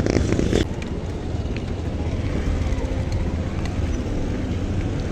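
Street traffic noise with wind rumbling on the microphone of a moving bicycle; a louder patch with some voices in the first half-second, then steady.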